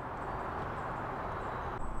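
Steady rush of distant highway traffic, an even hum with no single event standing out.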